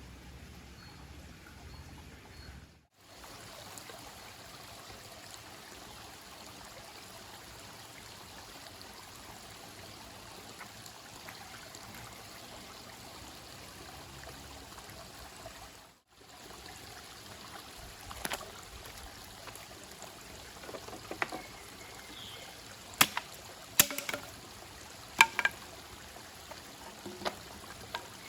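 Steady rush of running water, broken twice by a brief sudden gap. Several sharp clicks and knocks come in the last ten seconds.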